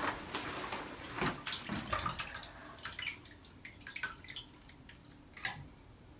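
Paddle wheel of a rubber-band-powered wooden paddle boat slapping bathtub water as the wound elastic unwinds: a patter of small splashes and drips that is quick at first and thins out over the next few seconds.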